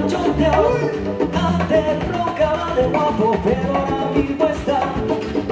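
Latin dance music playing at full level, with a repeating bass line under pitched melody lines.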